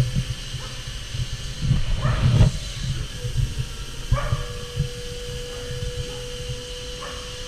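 Doosan Lynx 220LMC CNC lathe turning a 7075 aluminium part under flood coolant: a steady hiss and low hum, with a steady tone that drops out and comes back about four seconds in. Several short sharp sounds break in, the loudest about two seconds in.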